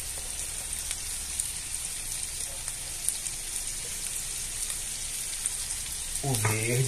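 Diced bacon, calabresa sausage, onion and garlic sizzling steadily in lard in a cast-iron skillet, with fine crackles throughout.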